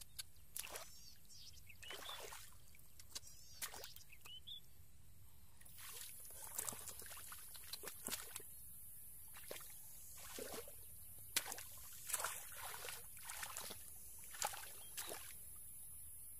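Hands groping for fish through shallow muddy water, sloshing and splashing in short, irregular strokes.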